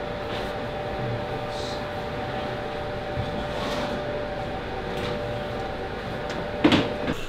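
Steady running hum of brewery machinery: a few constant tones over an even rushing noise. One sharp clack comes near the end.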